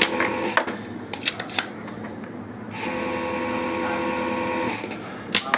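A machine's steady hum, running to about half a second in, stopping, then running again for about two seconds in the middle. In the gaps come several sharp clicks and taps of small parts and tools on the workbench.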